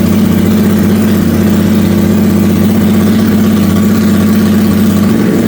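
Harley-Davidson Sportster S Revolution Max 1250 V-twin idling steadily and loud through a newly fitted exhaust, the test run of the pipes before final tweaks.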